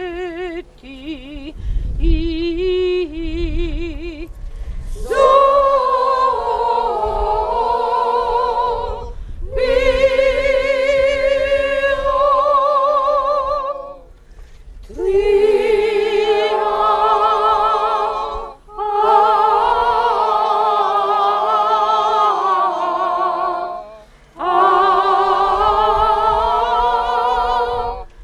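Women's choir singing a cappella. One voice with a wide vibrato is heard first; about five seconds in, the full choir enters in harmony and sings in long phrases separated by brief pauses for breath.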